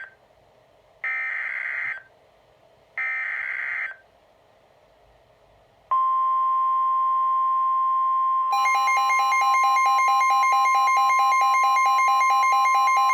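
NOAA Weather Radio emergency alert signal opening a new warning. First come two short screeching digital header bursts about a second apart. Then, about six seconds in, the loud, steady single-pitch warning alarm tone starts, and a second, lower tone joins it about two and a half seconds later.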